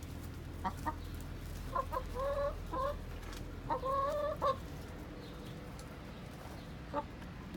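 Backyard hens clucking: a few short clucks, then two longer drawn-out pitched calls about two and four seconds in, and one more cluck near the end.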